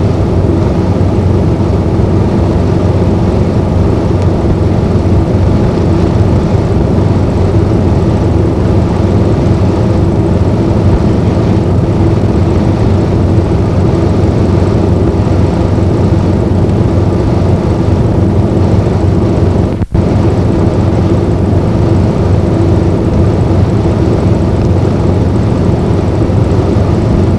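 Steady, loud drone of a 2002 NABI 40-LFW transit bus dominated by its fan, with the Detroit Diesel Series 50 engine barely heard beneath it. The sound drops out for an instant about twenty seconds in.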